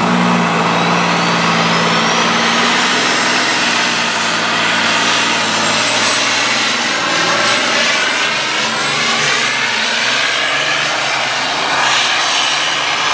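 Modified pulling tractor's big open-stacked engine running at full throttle as it hauls the weight-transfer sled down the track. A steady low engine note at the start gives way to a loud, even engine sound, with a faint rising whine over the first few seconds.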